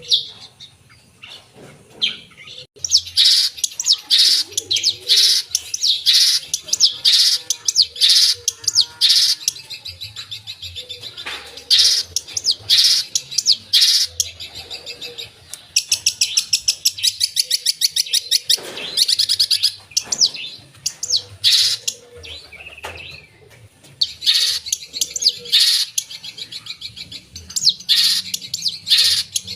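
Long-tailed shrike (cendet) singing a loud, fast, varied song of sharp chirps and chattering trills, with mimicked phrases of other birds, after a quieter first couple of seconds.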